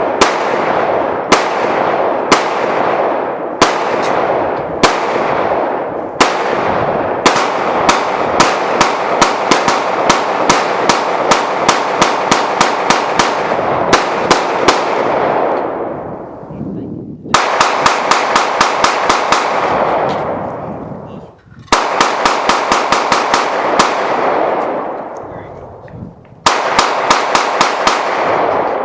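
Gunfire on a shooting range: single shots about a second apart, then rapid strings of several shots a second, each string ending in a long echoing tail before the next starts.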